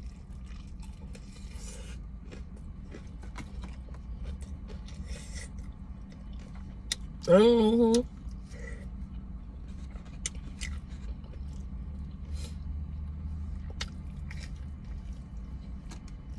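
Close mouth sounds of eating fried chicken: chewing, crunching and small wet clicks over a low steady rumble. About seven seconds in comes a short, wavering hummed "mmm" from the eater, the loudest sound.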